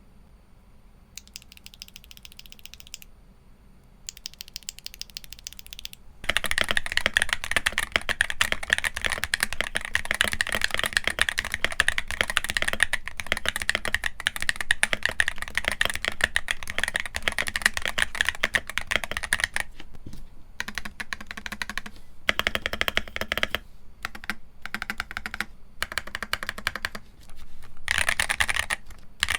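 Typing on a Wooting 60HE+ keyboard with Durock Rock HE magnetic switches. Soft, quieter keystrokes come in two short runs over the first six seconds. Then fast, continuous typing follows for about fourteen seconds, and after that it breaks into short bursts with brief pauses.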